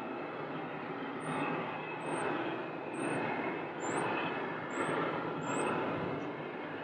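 Steady jet airliner engine noise, swelling a little in level several times, with six short high chirps about once a second through the middle.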